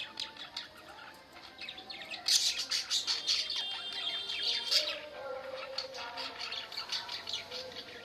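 Several budgerigars chattering and warbling: a dense stream of rapid high chirps and trills, busiest and loudest from about two to five seconds in.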